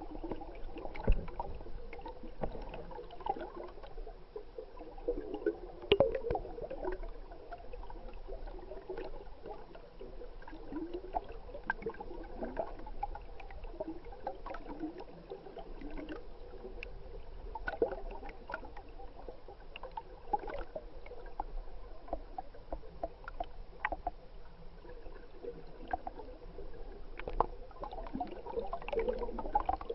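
Stream water gurgling and bubbling as picked up by an underwater camera, with scattered small clicks and knocks.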